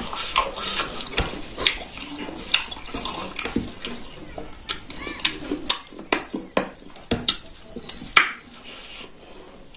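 Close wet chewing and lip-smacking of a person eating smoked pork feet and rice by hand: irregular sharp smacks, at times several a second, with the loudest near the end.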